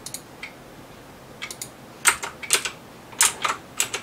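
Sharp clicks of a computer mouse and keyboard keys, about a dozen at irregular spacing, some in quick pairs, with quiet between.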